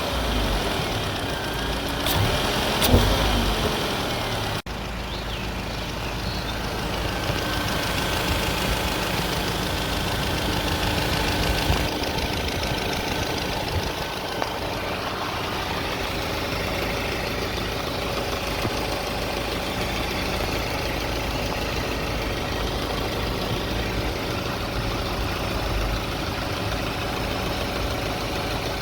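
1.8 TFSI (CJEB) four-cylinder turbo petrol engine running steadily at idle, with a few sharp clicks in the first seconds and a sudden break about four and a half seconds in. At 170,000 km it has started a clattering noise that the owner cannot explain.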